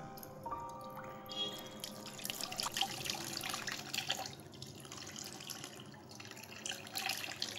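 Water poured from a plastic mug over a person's head, splashing and dripping unevenly.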